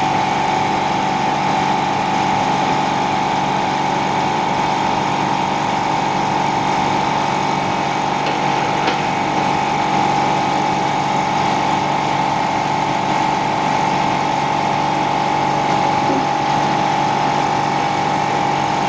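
Steady hum of an electric pump motor running, with a constant mid-pitched tone over lower steady lines.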